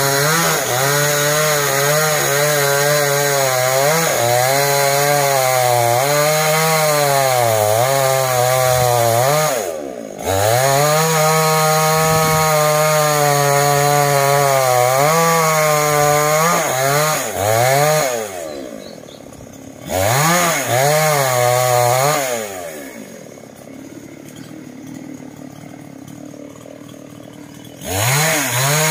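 Two-stroke petrol chainsaw running at high revs and cutting into a tree trunk, its pitch sagging and recovering under load. The engine drops away briefly about ten seconds in, falls to a quieter idle twice in the last third, and revs up again near the end.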